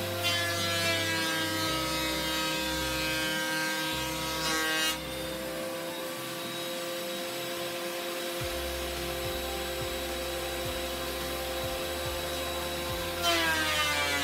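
Benchtop thickness planer running, with a steady motor whine. A board is going through the cutter block for the first five seconds or so, then the machine runs free; near the end another board bites in with a jump in loudness and the motor's pitch dips under the load.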